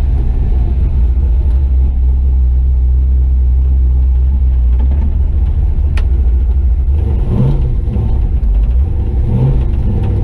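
Chevy truck's swapped-in 6.0 L LY6 V8 running with a steady low rumble as the truck is driven, the engine note shifting about seven seconds in and again near the end. A single sharp click sounds about six seconds in.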